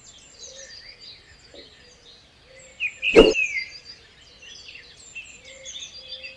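Birds chirping and twittering in many short, varied calls, with one sharp click about halfway through.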